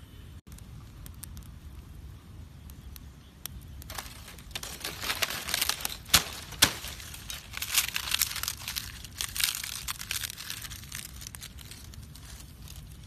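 Dry palm leaves crackling and crinkling as they are pushed into an open fire and catch, a dense run of sharp crackles from about four seconds in, with two loud snaps near the middle.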